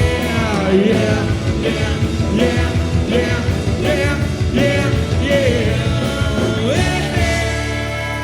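Live rock band playing the last bars of a song: a lead line with bending notes over bass and drums. About seven seconds in it slides up into a long held final chord that rings and slowly fades.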